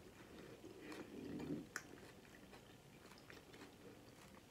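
Faint chewing of a taco, close to the microphone, with a few soft mouth clicks; the clearest click comes at about a second and three quarters in.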